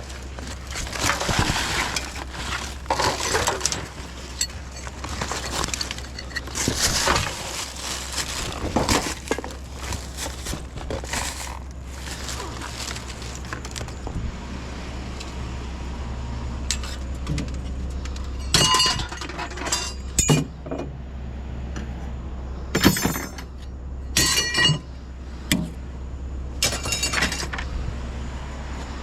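Pieces of scrap metal being handled and tossed, clattering and knocking. In the second half there are several sharp ringing clinks. A steady low hum runs underneath.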